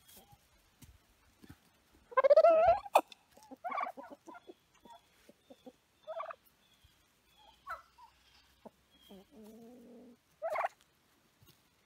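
White domestic turkeys gobbling and calling: one loud rippling gobble about two seconds in, then several shorter calls, with a lower, steadier call shortly before the end.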